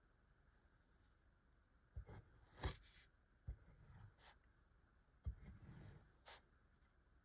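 Kinetic sand being cut and worked with a metal tool: several light taps, spaced about a second apart, each with soft scraping and crumbling after it.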